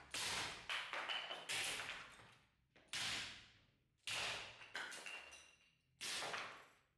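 Steel Khevsur sword blade chopping through wooden sticks clamped in a vise: a series of sharp hits about every one to one and a half seconds, with smaller clacks between them as cut pieces fly and land on the workbench. A brief thin ringing note follows a couple of the strikes.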